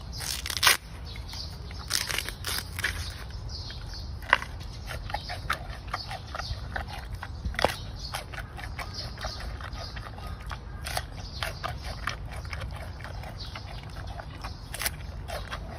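Giant panda biting and chewing a bamboo shoot: a run of irregular crunches, the loudest about half a second in and again near eight seconds, over a steady low rumble.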